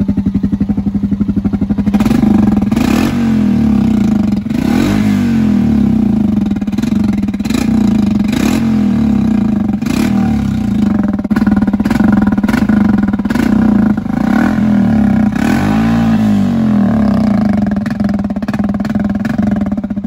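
Honda Rubicon ATV engine running steadily with repeated throttle blips, its pitch rising and falling several times.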